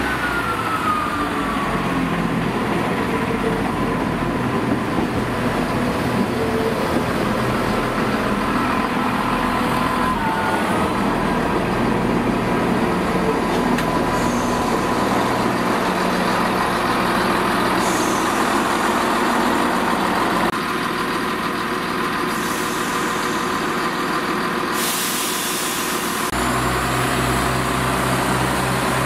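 Class 170 Turbostar diesel multiple unit moving slowly past, its underfloor diesel engines running steadily. A thin whine falls in pitch over the first couple of seconds, and a deeper low hum comes in near the end.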